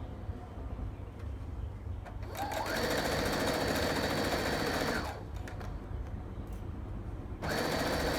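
Sewing machine stitching a seam to join skirt panels, running in two stretches of about three seconds each, the first starting about two seconds in, with a pause between.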